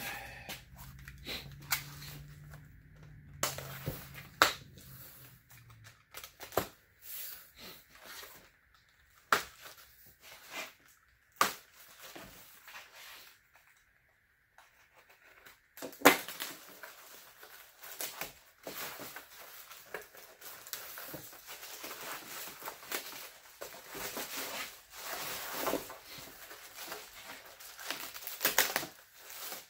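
Table saw parts box being opened by hand: cardboard and packaging rustling and tearing, with scattered knocks and clunks of parts being handled, the loudest about halfway through. A low hum runs through the first few seconds.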